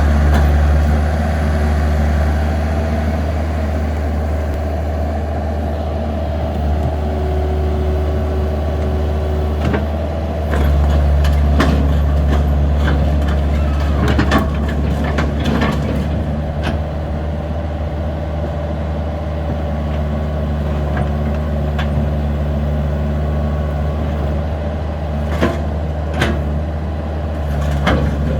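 A heavy diesel engine running steadily. It eases off about a second in and picks up again about ten seconds in, with scattered sharp metallic knocks and clanks over it.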